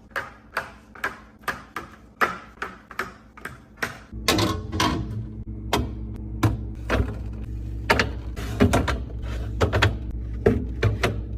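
Items and containers being handled and set down in a fridge: a steady run of sharp clicks and knocks, about two a second. A low steady hum joins about four seconds in.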